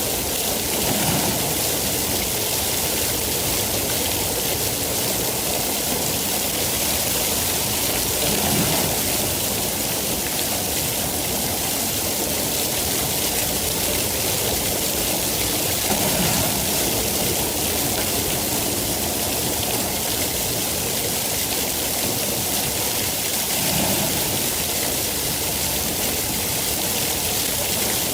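Steady rain falling as an even hiss, with four brief swells in the lower sound spaced about seven to eight seconds apart.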